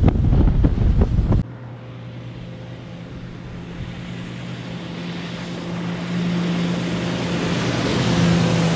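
Wind rushing over the microphone on a boat at speed, cut off sharply about a second and a half in. Then a motorboat's outboard engine running steadily as the boat approaches, growing louder along with a rising hiss of spray.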